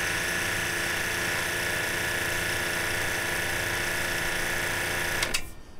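A 1,500 PSI misting pump, an electric motor driving a brass-headed plunger pump, running steadily at full pressure while a misting nozzle sprays a fine mist with a hiss. It cuts off suddenly about five seconds in.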